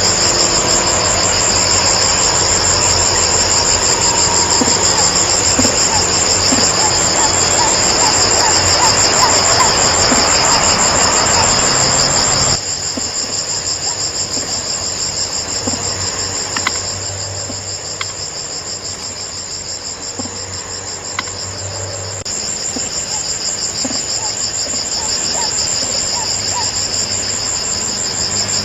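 Steady, shrill insect chorus of crickets trilling continuously with a fast pulse, over a low background hum that drops off abruptly about halfway through.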